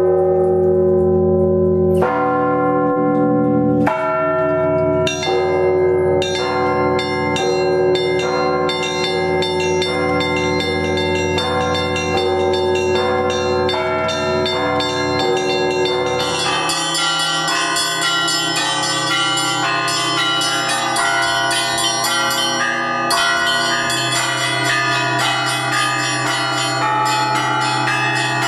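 Russian Orthodox church bells ringing: a few heavy strokes about two seconds apart, then smaller bells join in with fast, overlapping strikes. About halfway through, the pattern of the lowest bells changes.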